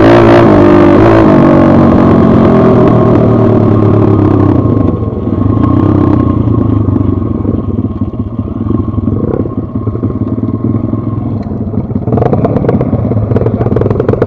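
Single-cylinder four-stroke pit bike engine, heard from the rider's own bike, running hard with the revs swinging up and down, then easing off about five seconds in and running at lower, uneven revs as the bike slows, with the engine rising again near the end.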